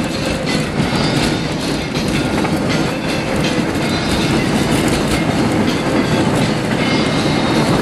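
Car driving on an unpaved dirt road, heard from inside the cabin: a steady rumble of tyres on the rough surface, with many small rattles and knocks from the body and interior.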